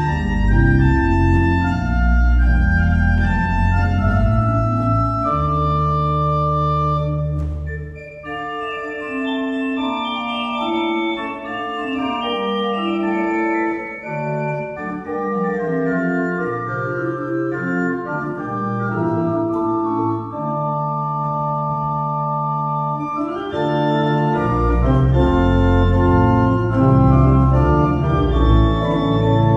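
Two-manual pipe organ played in free improvisation: sustained chords over deep bass notes. The bass drops out about eight seconds in, leaving a lighter passage in the upper registers, and returns near the end.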